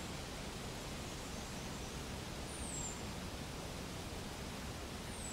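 Steady outdoor background hiss, with a thin, high whistle that falls in pitch about halfway through and again right at the end.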